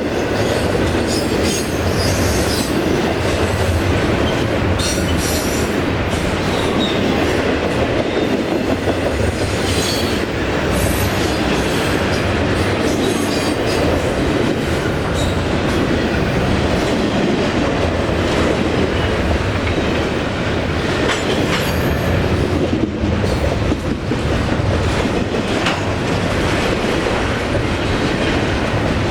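Train rolling past, its wheels running steadily on the rails with repeated clicking over rail joints.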